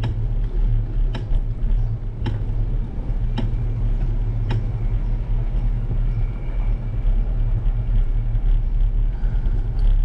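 A bicycle rolling slowly along a paved street, heard through a GoPro action camera: a steady low rumble of wind and road noise on the microphone. A sharp tick comes about once a second and stops about halfway through.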